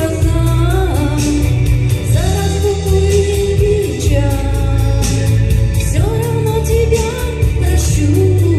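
A woman singing a song into a microphone in long held notes, over backing music with a steady bass and beat.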